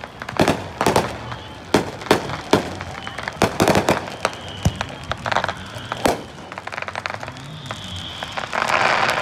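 Fireworks going off over a beach: a string of irregular sharp bangs and pops. A dense burst of crackling comes near the end.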